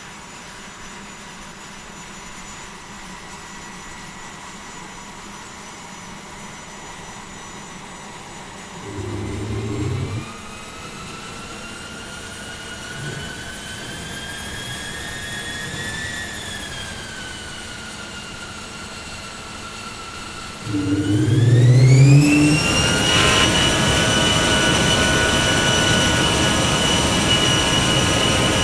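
Jet engine starting up. A steady turbine whine begins climbing in pitch, with a brief low rumble about nine seconds in. About two-thirds through, a louder rumble comes in, and the whine rises steeply and settles into a loud, steady, high-pitched run.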